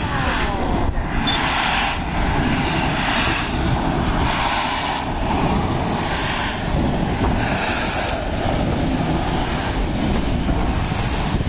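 Flying Scotsman, an LNER A3 three-cylinder 4-6-2 steam locomotive, moving slowly past at close range. Its wheels and motion rumble on the rails and steam hisses, heavy and steady throughout.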